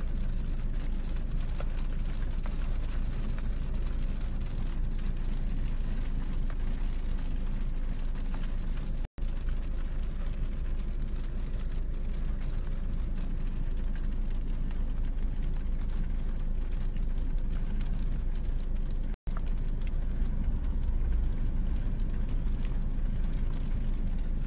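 Steady low rumble of a car's engine and tyres heard inside the cabin while driving, with rain on the glass. The sound cuts out briefly twice.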